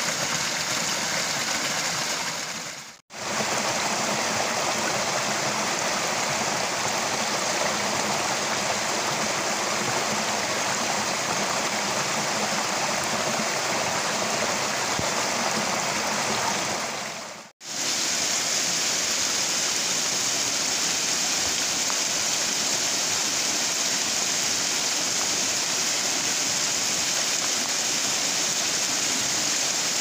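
Small stream splashing over mossy rocks in little cascades, a steady rush of water. It breaks off briefly twice, about three seconds in and just past the middle. After the second break it comes back with a brighter hiss.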